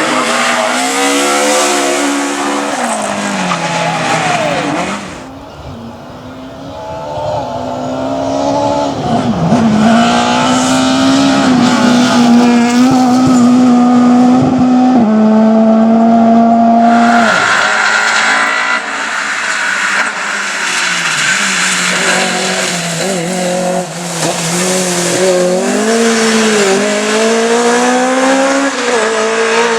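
Rally cars driven hard on a stage: engines revving high and dropping through repeated gear changes, with a stretch about halfway through where the engine is held at a steady high pitch. Its pitch and loudness change abruptly a few times as one car gives way to another.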